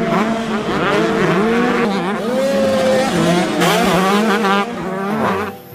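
Motocross bike engine sound effect, revving over and over, its pitch rising and falling.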